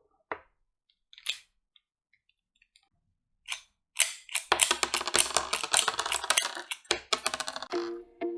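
Scattered sharp clicks, then a few seconds of dense clicking and crackling handling noise, like a small plastic toy and its packaging being handled; music with steady sustained notes starts near the end.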